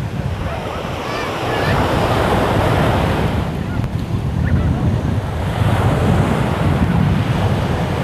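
Small waves breaking and washing up a sandy beach in a steady rush, with wind buffeting the microphone in a low rumble.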